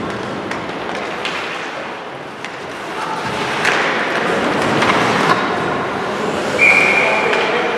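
Ice hockey rink during play: skates scraping across the ice with sharp clacks of sticks and puck. Near the end a referee's whistle gives one short steady blast, the loudest sound here.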